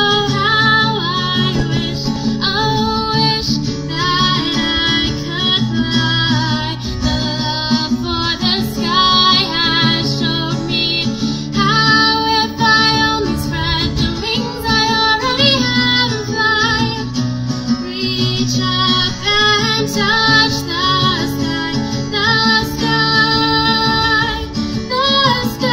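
A woman singing a song as she plays an acoustic guitar, a live solo performance.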